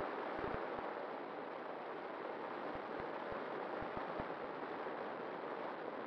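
Steady rush of wind and airflow over a wing-mounted camera on a small airplane on its landing approach in gusty wind, with a few short low buffets on the microphone.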